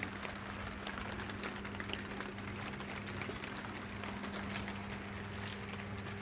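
Light rain dripping and tapping on an awning in many small irregular ticks, over a steady low hum.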